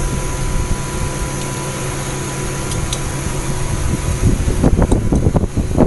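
Steady machine hum with a thin high whine. From about four seconds in, irregular metallic knocks and clatter as a metal bottle fixture is handled and fitted onto the print-station shaft.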